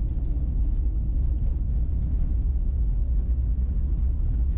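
Steady low rumble of a vehicle's engine and tyres on a snow-packed road, heard from inside the cab while driving.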